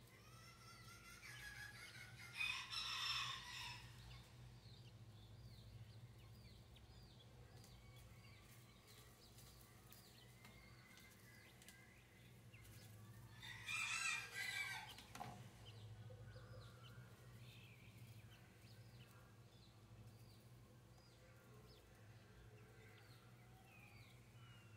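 A rooster crowing twice, about ten seconds apart, loud against a quiet background. Under it, faint repeated high peeps from newly hatching Chinese painted quail chicks.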